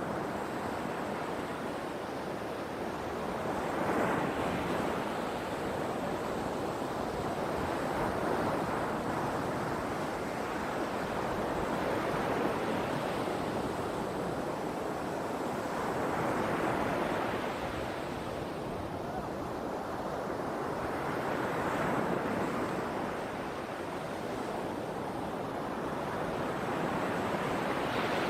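Sea waves breaking and washing on the shore, the surf swelling and fading every four to five seconds.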